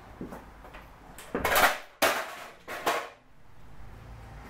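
Clatter of hard objects being handled: a few loud, sudden clatters and knocks between about one and three seconds in, with fainter ticks before them.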